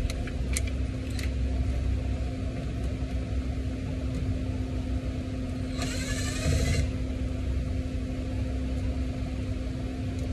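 A cordless drill/driver runs for about a second, its motor whine rising, about six seconds in, backing out a Phillips-head screw at the top of the door frame. A few sharp clicks come near the start, over a steady low hum.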